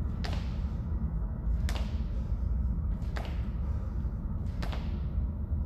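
A pair of hex dumbbells knocking sharply about once every second and a half, one knock per squat rep, over a steady low rumble.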